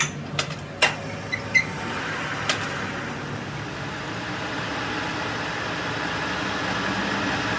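Workshop noise: a few sharp metallic knocks in the first couple of seconds, then a steady machine noise that slowly grows a little louder.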